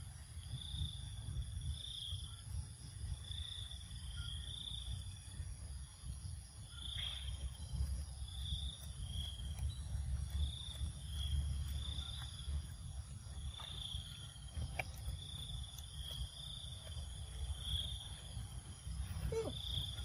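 Insects chirping outdoors, a short high-pitched pulse repeating roughly once a second, over a steady low rumble. A brief rising squeak comes near the end.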